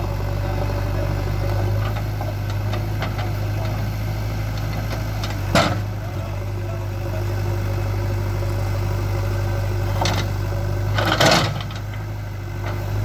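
JCB 3DX backhoe loader's diesel engine running steadily at low revs. There is a sharp knock about halfway through and a longer clatter near the end.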